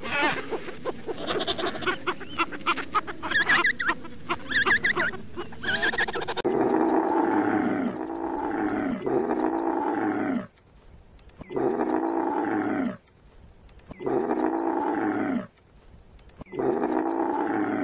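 For about the first six seconds, a busy run of rapid, repeated calls from African penguins. Then a Bactrian camel calls again and again: long, deep calls that fall in pitch, each a second or two long, with short pauses between.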